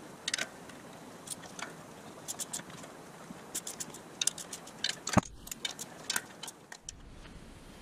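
Scattered light clicks and taps of small metal parts being handled, irregular and unhurried, with one sharper knock about five seconds in, over a faint steady hiss.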